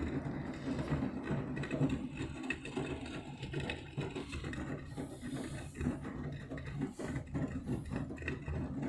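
Beko front-loading washing machine in the main wash of its Quick 60 programme: the motor hums and the drum turns, tumbling a load of wet towels and bathrobes with irregular soft knocks.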